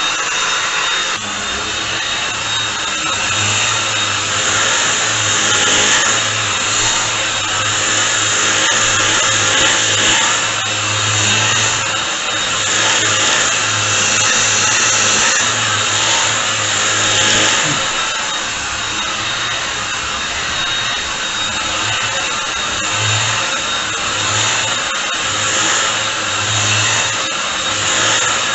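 Bush 25.2V cordless stick vacuum cleaner running steadily, its motor giving a whooshing rush with a thin high whine, while a low hum from the motorised brush head comes and goes as it is worked over the floor.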